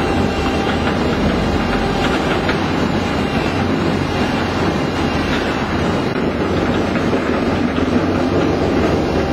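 WEIMA WLK15 single-shaft shredder running under load, its rotor cutting through cellulose pulp: a steady, dense mechanical noise with a low hum and scattered light knocks.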